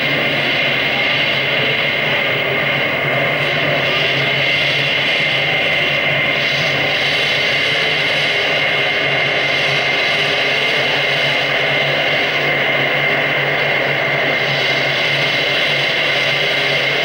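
Live electronic soundscape played from a laptop: a dense, steady drone of several held tones over a thick layer of noise, with no breaks or changes.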